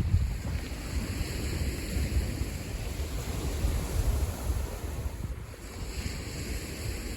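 Waves washing on the Lake Michigan shore, with gusty wind buffeting the microphone in a low, uneven rumble.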